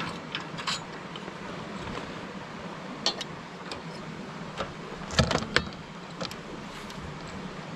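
A few sharp metallic clicks and clinks of a hand wrench working the exhaust manifold bolts of a small engine, loudest about five seconds in, over a steady background rush.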